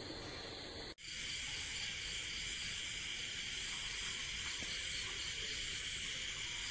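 Steady high-pitched chirring of night insects. It cuts out for an instant about a second in, then carries on slightly louder.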